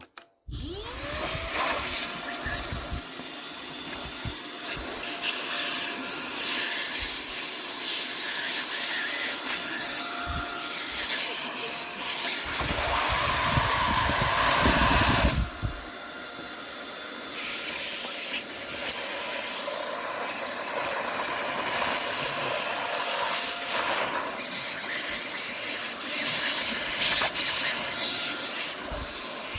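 Buture JR400 cordless stick vacuum, fitted with its crevice tool, switched on with a rising whine as the motor spins up. It then runs steadily with a rushing suction sound and a faint whine, sucking up spilt cereal. It gets louder for about three seconds near the middle.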